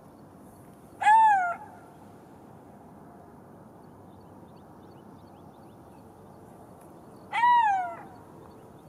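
Golden jackal giving two short calls about six seconds apart, each under a second long, rising then falling in pitch.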